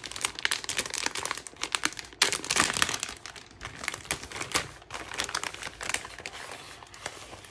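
Holographic plastic mailer pouch being torn open at its notch and pulled apart by hand, its film crinkling, loudest for a moment about two seconds in.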